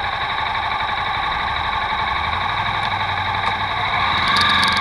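Motorcycle engines idling at a standstill, with the engine revs rising near the end as a bike starts to pull away.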